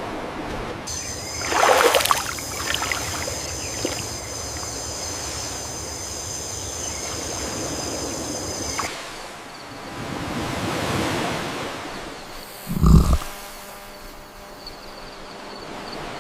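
Water rushing and splashing, with a splash about two seconds in and a steady high-pitched ringing from about one to nine seconds. A short deep thump near the end is the loudest sound.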